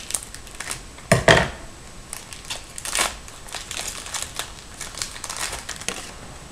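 Wrapper of a Panini Certified hockey card pack crinkling as it is handled and torn open, with a dull knock about a second in.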